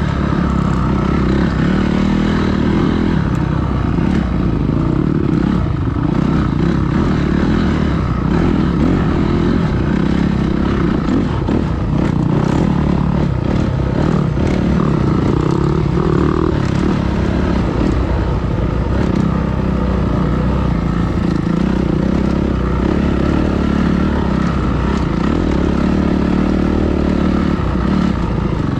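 Dirt bike engine running steadily while being ridden, its revs changing only a little.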